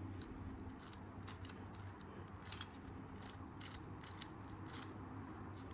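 Plastic 5x5x5 Rubik's cube (Professor's Cube) being turned by hand: faint, irregular clicks and rasps of the layers turning, one a little louder about halfway through.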